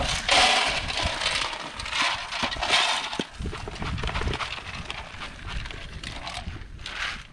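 Pig feed pellets pouring from a plastic bucket and rattling into a metal pan for about three seconds. A pig then eats from the pan, crunching the pellets.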